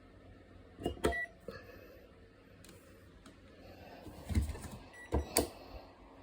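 A few sharp knocks and clicks of small objects being handled: two about a second in, then a cluster between about four and five and a half seconds in.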